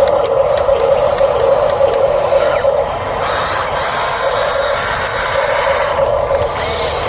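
Huina RC bulldozer's electric drive motors whining through their gearboxes, with a gritty rasp from the tracks working in dry sand. The whine stops briefly about three seconds in and again near the end.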